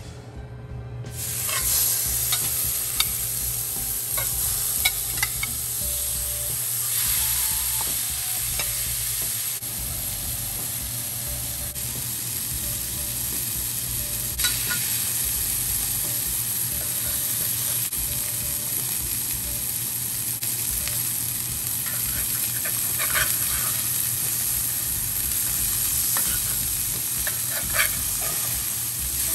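Wagyu beef patties frying in a very hot cast-iron skillet: a steady sizzle that starts about a second in as the patties go into the pan. Near the end, a few short clicks and a scrape as a metal spatula turns a patty.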